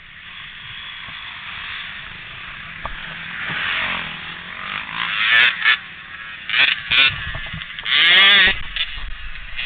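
Quad (ATV) engine running and revving, its pitch rising and falling, with several short loud bursts in the second half.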